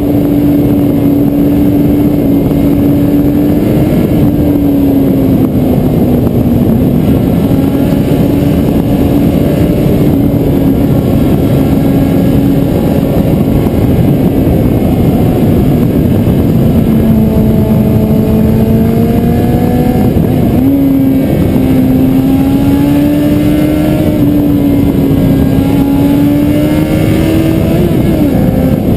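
Kawasaki Z750's inline-four engine at a steady cruise from the rider's seat, its pitch drifting gently up and down with small throttle changes and briefly dipping then recovering about two-thirds through. Heavy wind noise on the microphone runs under it.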